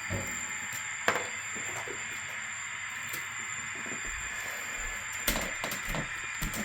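Model train running on layout track: a steady electric-motor whine with a few sharp clicks, one about a second in and a cluster near the end.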